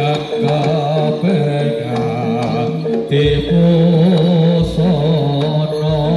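Javanese jaranan gamelan accompaniment playing: a wavering melody line over a steady held note, with deep drum or gong strokes entering a little past three seconds in.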